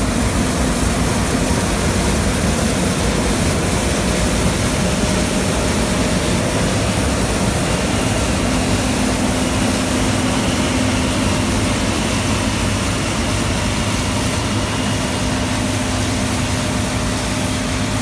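Steady, loud engine drone and machinery noise of a combine harvester cutting wheat close by, with a steady low hum that strengthens a little about halfway through.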